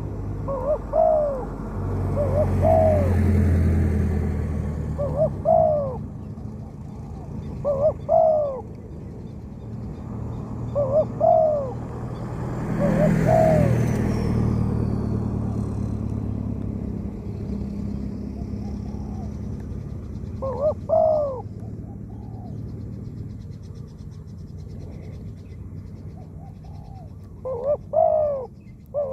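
Spotted dove cooing: short curved coo phrases repeated every few seconds, several in quick succession near the end. Twice a low rumble swells and fades under the calls.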